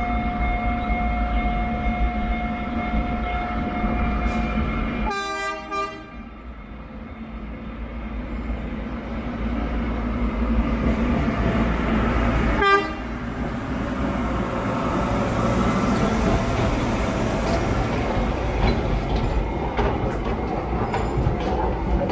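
Huwei Sugar Factory narrow-gauge sugarcane train sounding its horn: a short blast about five seconds in and a briefer toot near thirteen seconds. Then the train's running noise and wheel clicks grow louder as it comes past.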